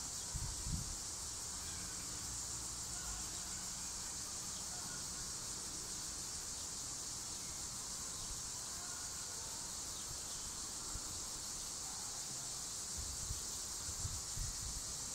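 A steady, high-pitched chorus of insects, with faint low rumbles on the microphone near the start and again near the end.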